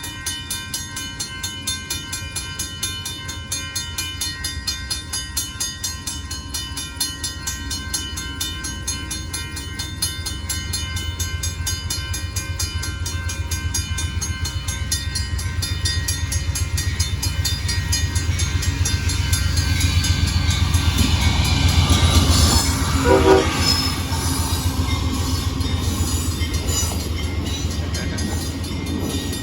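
Amtrak Texas Eagle passenger train approaching and passing a grade crossing: a crossing bell rings in steady strokes while the train's low rumble builds, loudest about twenty-two seconds in, with the train horn sounding.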